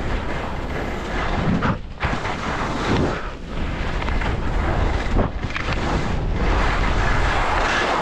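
Skis running over snow, with wind rushing across an action camera's microphone: a steady noise that drops out briefly a few times.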